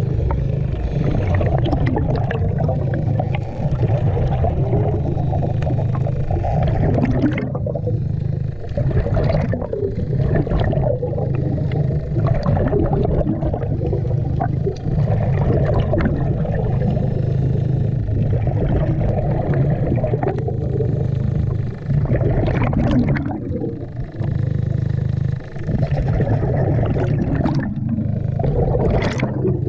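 Underwater sound of a diver breathing on a hookah regulator: gurgling exhaled bubbles over a steady low hum, which breaks off briefly a few times.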